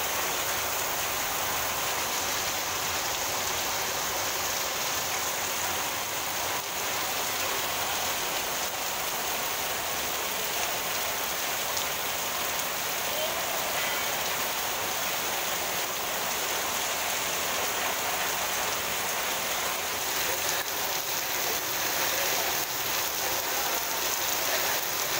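Torrential rain falling steadily: a dense, even hiss of rain on roofs and the wet street.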